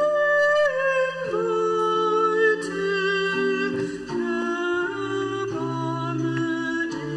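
Church organ playing slow, sustained chords that change about once a second.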